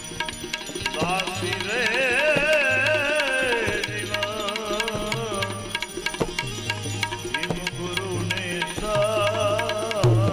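Bhajan music: tabla keeps a steady rhythm under a wavering, ornamented melody. The melody swells about a second in and comes back near the end.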